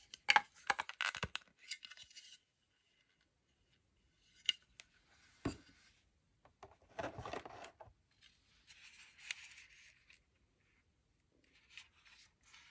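Hard plastic toy parts and a clear plastic blister tray being handled: clusters of clicks and rattles, a single thump about five and a half seconds in as a part is set down, and a soft plastic rustle near the end.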